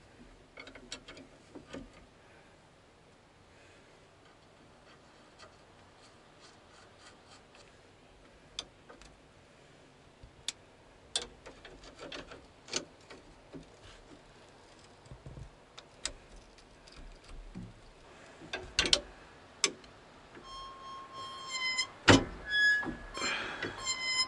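Scattered metallic clicks and light knocks of hand tools on hydraulic line fittings, with long quiet gaps between them. A few louder knocks come near the end, as background music with plucked notes begins.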